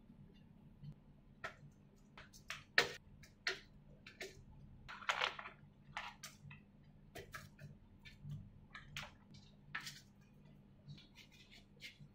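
Frozen rice balls being set down one by one on a foil-lined metal baking tray, a string of irregular light taps and foil crinkles, with a brief plastic-bag rustle about five seconds in.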